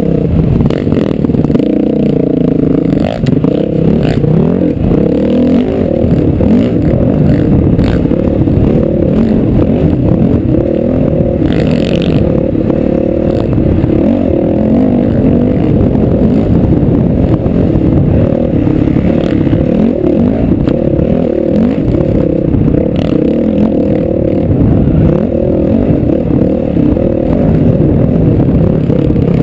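Dirt bike engine running hard under load, its pitch rising and falling as the throttle opens and closes, heard from the rider's helmet camera.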